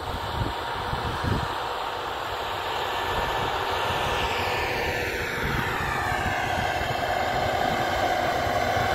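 Diesel engine of a T-150K tractor working under load as it pulls a cultivator, heard as a steady drone.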